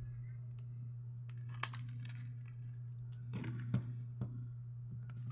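Hands handling a new smartphone and its packaging: plastic and paper crinkling and rustling, with a couple of sharp clicks, over a steady low hum.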